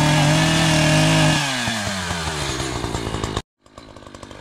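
Two-stroke ECHO CS-590 Timber Wolf chainsaw held at high revs, then let off about a second and a half in so the engine note falls to idle. Near the end the sound drops out for an instant and comes back with the saw idling.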